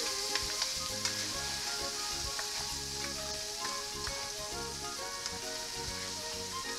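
Blue crabs sizzling as they fry in hot olive oil in a frying pan, stirred with a plastic spatula that taps against the pan a few times in the first second or so. Background music with a melody plays underneath.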